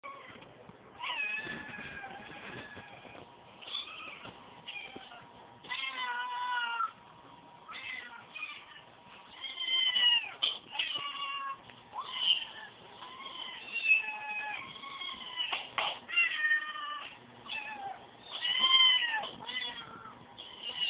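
Cat meows in a long, irregular series, some short and some drawn-out and wavering in pitch, with the loudest calls coming in the second half.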